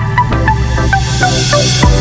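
Electronic dance music: a fast repeating synth melody over a steady bass, with a rising hiss that builds to a hard drum hit near the end.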